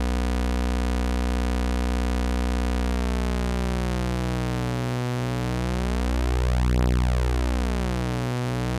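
MES Mini 11 software synthesizer holding one low, bright sustained note on two oscillators. About three seconds in, oscillator 2's cents detune is turned up and the note starts to beat, the beating getting faster as the detune widens: the classic detuned-oscillator sound.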